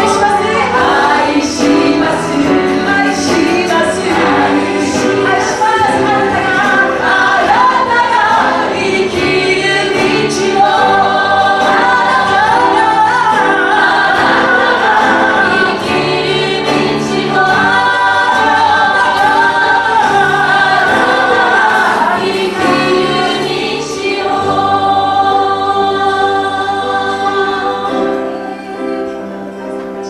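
A group of women sings a Japanese Christian worship song in unison and harmony, accompanied by piano and guitar. The music fades near the end.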